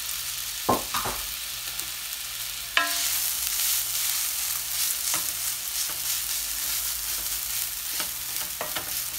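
Drained instant noodles frying in hot oil in a nonstick pan: a steady sizzling hiss, with a wooden spoon stirring and tapping against the pan. A sharp knock comes about three seconds in, after which the sizzle is a little louder.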